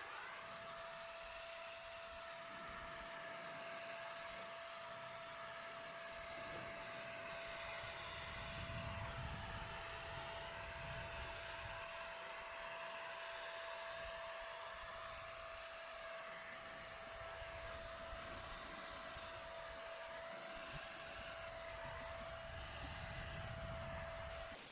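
Total TT3506 electric paint spray gun running steadily, its motor giving a constant whine over the hiss of air and atomised paint as it sprays a finish coat. It shuts off abruptly at the very end.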